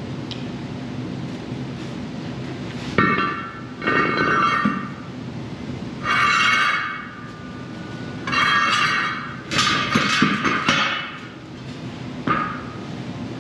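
Steel disk harrow blades knocking and ringing against each other and the gang shaft as they are handled and slid on, about six ringing metallic strikes with the loudest near the middle.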